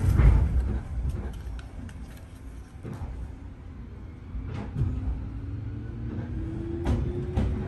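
Electric train pulling out and gathering speed, heard from inside the carriage: a low running rumble with a thump at the start, sharp clicks of the wheels over rail joints, and from about halfway a rising whine of the traction motors as it accelerates.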